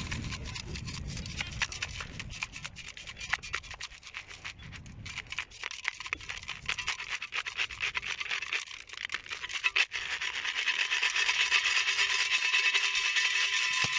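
Sand and grit rasping and clicking against a perforated stainless-steel sieve as it is shaken to sift out a coin. The sifting gets steadier and louder in the last few seconds, with a faint steady tone underneath.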